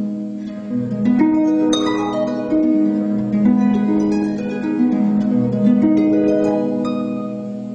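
Concert harp being played: plucked notes ringing over one another above sustained low bass notes, growing softer near the end.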